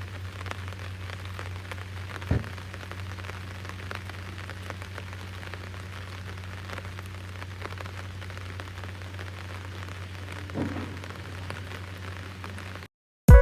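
Steady low hum under an even hiss, with a sharp knock about two seconds in and a softer knock near the ten-second mark.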